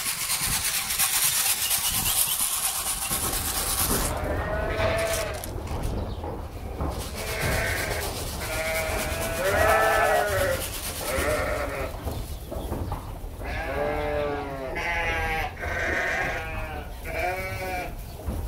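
A flock of ewes bleating, a dozen or so calls from several sheep, some overlapping, starting about four seconds in. Before the calls begin there is a steady hiss.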